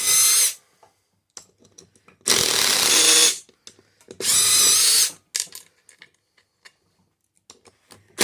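A power drill with a 12 mm socket spinning out the bolts that clamp the two halves of a snowblower's split rim together. It runs in short bursts of about a second each: one at the start, two more in the middle, and another beginning at the very end, with the pitch rising as each burst gets going.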